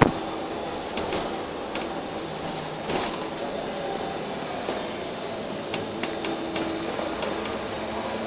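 Inside a Wright Eclipse single-deck bus while it runs: a steady drone of engine and running gear, its pitch shifting slowly, with sharp rattles and knocks from the bodywork and fittings. The loudest knock comes right at the start, with smaller ones about 1, 3 and 6 seconds in.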